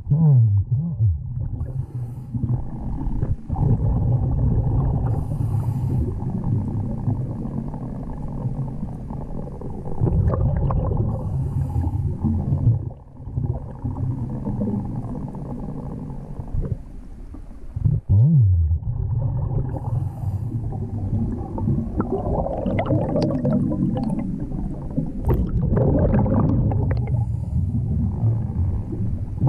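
Scuba diver breathing underwater through a regulator: a short hiss on each breath in, every several seconds, and exhaled bubbles gurgling and rumbling in between.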